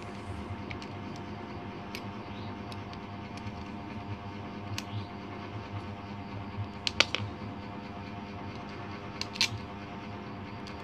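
Sharp little metal clicks and taps from a PCP air rifle's box chamber (trigger housing) being handled, the loudest a quick cluster about seven seconds in and another about nine and a half seconds in, over a steady background hum.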